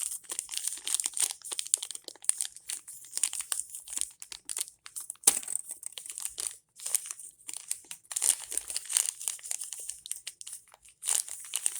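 Small toy package's wrapper being opened by hand, with irregular crinkling and some tearing, louder in spots.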